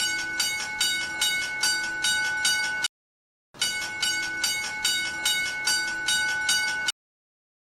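Japanese railroad crossing warning bell ringing 'kan kan', an even ding about two and a half times a second. It sounds in two stretches that stop abruptly, with a short break about three seconds in.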